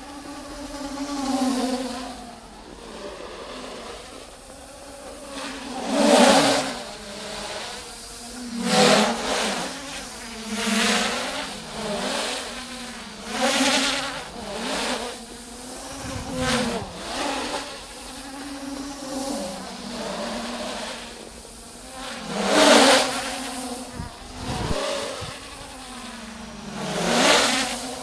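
Traxxas Aton quadcopter's motors and propellers buzzing, the pitch sliding up and down with the throttle. It swells loud and falls back many times as the drone speeds up and manoeuvres.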